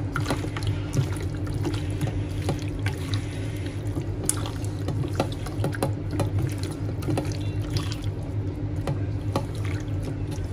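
Raw chicken pieces being mixed by hand in a thick, wet spice marinade with cornflour: irregular wet squelches and small clicks, over a steady low hum.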